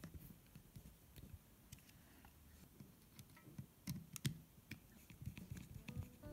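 Faint scattered clicks and taps of a small screwdriver and fingers handling a hair clipper's metal motor and plastic casing as a screw is driven in, with a few sharper clicks about four seconds in.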